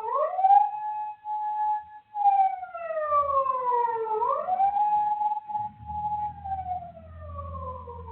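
A Japanese police car siren rises quickly, holds a steady wail, then slides slowly down, twice over. The second fall fades away as the siren winds down. A low hum comes in during the last couple of seconds.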